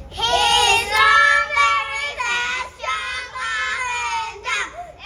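A high voice singing a melody in short phrases, sliding in pitch between held notes.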